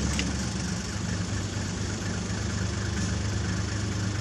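Engine of an open safari game-drive vehicle idling steadily, a low even hum with no revving.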